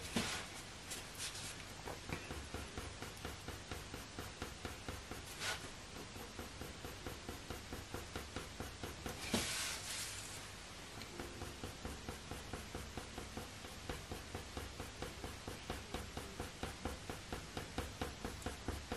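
Polychromos coloured pencil scratching on heavy hot-press watercolour paper in short, quick, firmly pressed fur strokes, about four a second. A few strokes scratch louder, one about nine seconds in.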